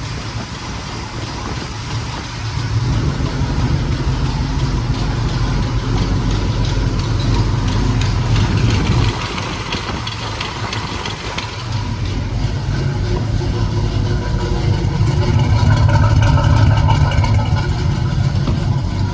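Cammed small-block Chevy V8 running through new stainless Hooker headers that still have a minor exhaust leak. The engine gets louder about two seconds in, eases back around nine seconds, then picks up again after about twelve seconds.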